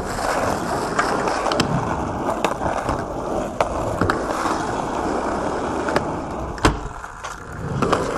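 Skateboard wheels rolling over rough asphalt, a steady gritty rumble, with scattered sharp clicks and a louder knock near the end.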